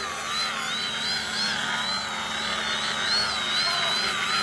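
Brushless electric motor and propeller of a DW Foamies Juka 40-inch foam aerobatic RC plane whining, the pitch rising and falling every half second or so as the throttle is worked up and down.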